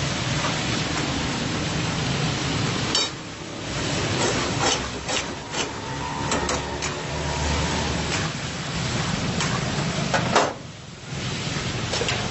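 Chicken karahi sizzling in a steel karahi (wok), with a long metal spatula scraping and clacking against the pan a dozen or so times. The sizzle dips briefly twice.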